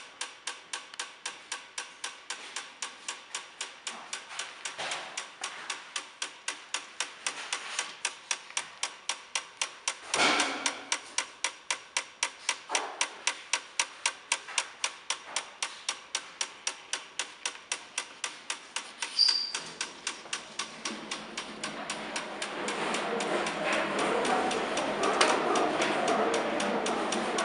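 Sharp, regular clicking, about three clicks a second, from a powered-up Chatillon LR 5K materials testing machine with its covers off. There is one louder knock about ten seconds in, and a steady rushing noise builds up under the clicking in the last third.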